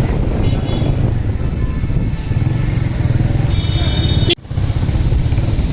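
Motorcycle engine running steadily on the move through traffic, a constant low rumble. A short high tone sounds about three and a half seconds in, and the sound cuts out for a moment just after four seconds.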